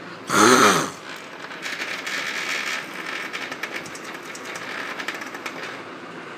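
A short loud vocal sound, then about a second later a small vibrator motor in heat-shrink buzzes and rattles against a ballpoint pen and the tabletop for about four seconds before stopping, switched on by a sound-activated circuit and cut off by its five-second timer.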